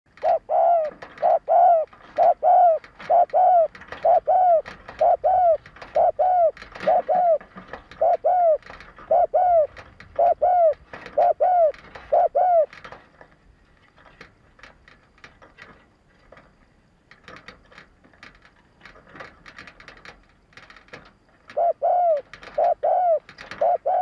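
Spotted dove giving a fast run of short coos, about one and a half a second, each note rising and falling. It stops a little past halfway, leaving only faint clicks, and starts the same cooing again near the end.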